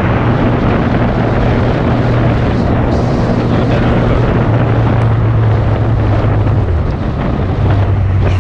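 Suzuki GSX650F inline-four engine running at steady road speed under heavy wind noise on the microphone. The engine note dips lower about seven seconds in.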